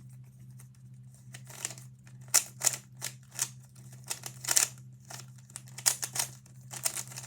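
Plastic Rubik's Cube layers being turned rapidly by hand: irregular clicking and rattling, several turns a second.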